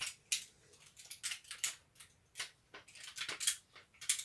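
Irregular sharp clicks and light rattles, about a dozen over a few seconds, of small parts being handled: the drill's housing and its pieces being fitted back together by hand.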